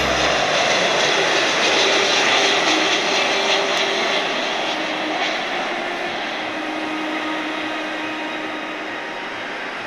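Jet engine noise of a Boeing 767 freighter landing: a steady rushing sound with faint steady tones beneath, fading gradually as the aircraft passes and descends to the runway.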